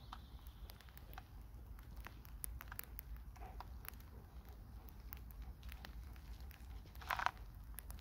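Faint handling sounds of a trail camera being strapped to a tree trunk: scattered light clicks and rustles, with one short louder scrape about seven seconds in.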